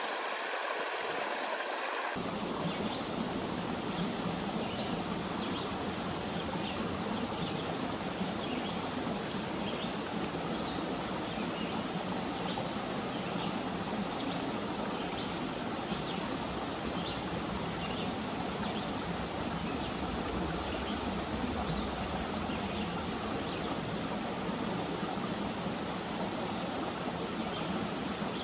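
Creek water flowing, a steady rushing and babbling sound, its tone shifting slightly about two seconds in.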